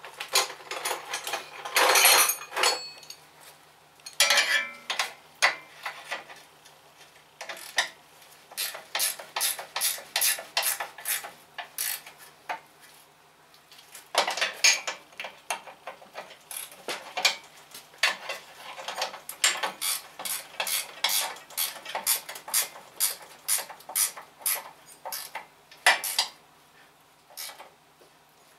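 Hand tools clicking and clinking against the steel frame and rear axle housing of a garden tractor during repair work, in irregular runs of quick metallic clicks, some coming about three or four a second.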